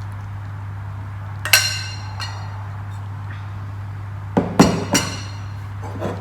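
A serving ladle clinking against a dish as dal is served: one sharp, briefly ringing clink about a second and a half in, then a quick run of clinks between about four and five seconds in and a softer one near the end.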